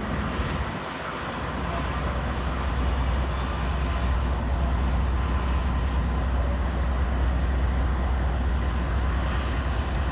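Diesel locomotive engines running with a steady deep rumble, dipping briefly about a second in.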